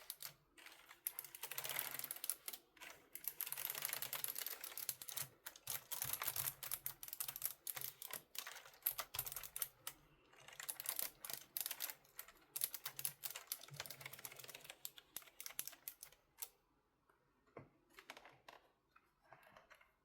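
Razer Ornata Chroma mecha-membrane keyboard keys being pressed in rapid succession, one key after another, as every key is tested after a clean. The key presses are dense for most of the time and thin to a few scattered clicks about sixteen seconds in.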